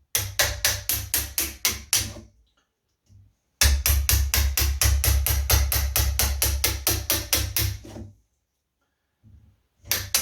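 Hammer rapidly tapping a wood chisel into the edge of a door, about five blows a second in three runs with short pauses between, cutting the latch recess a little deeper because the latch is still a little tight.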